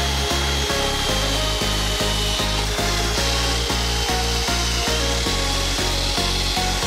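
Cordless drill spinning a round scrub-brush attachment against a wet wooden cabinet door: a steady motor whine with brushing and scrubbing, over background music with a steady beat.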